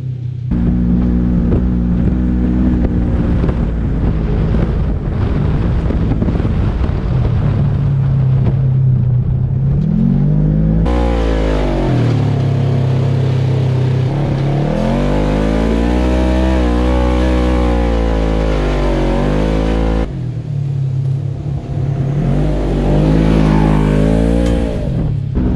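Polaris GENERAL 4 1000's 999 cc parallel-twin engine running through an HMF Titan dual full exhaust, revving and accelerating hard with its pitch rising and falling again and again. The sound changes abruptly several times, as between separate runs.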